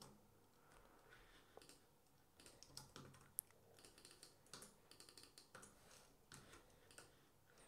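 Faint, irregular keystrokes on a computer keyboard while text is typed and deleted in a code editor.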